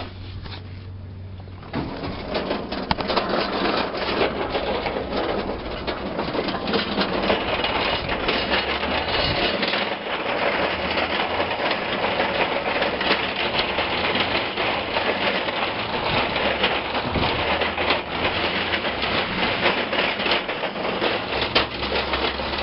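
Scrapyard din: continuous rapid clattering and clanking of metal over the steady hum of running machinery, starting about two seconds in.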